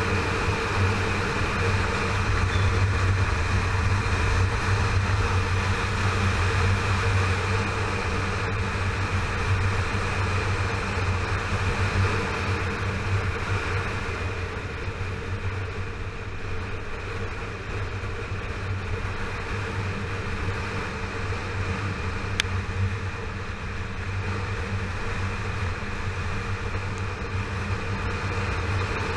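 2009 Yamaha FZ6R's 600 cc inline-four engine running steadily at cruising speed, with wind and road noise, a little quieter through the middle.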